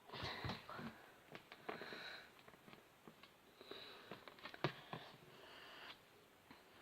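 Faint clicks and taps of small detachable eraser pieces being handled and pressed together on a table, with a few sniffing breaths in between.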